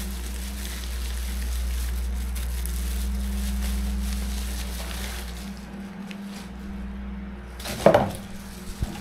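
Bubble-wrap mailer and plastic packaging rustling and crinkling as it is opened by hand, with a sharp, loud crackle about eight seconds in. A steady low hum runs underneath.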